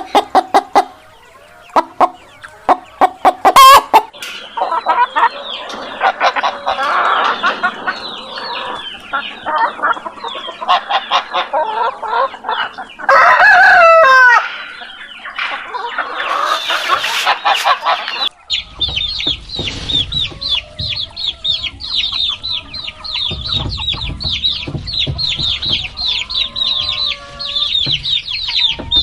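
Chickens clucking and cackling in rapid runs, with one long rooster crow about 13 seconds in. After about 18 seconds the sound changes to a dense chorus of high-pitched chick peeping over a low rumble.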